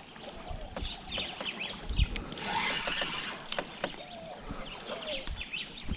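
Small knocks and clicks from handling fishing gear on a plastic kayak, with a dull thump about two seconds in and a brief rush of noise just after. Short bird chirps come and go throughout.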